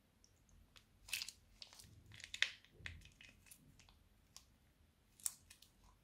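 Plastic piping bag crinkling and crackling as it is squeezed and wrung out to empty the slime, in a string of sharp crackles that are loudest about two and a half seconds in and again near the end.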